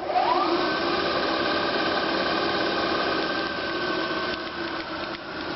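Milling head spindle of a Southwestern Industries ProtoTrak K2 CNC knee mill starting up, its whine rising in pitch for about half a second and then settling into a steady, even running hum.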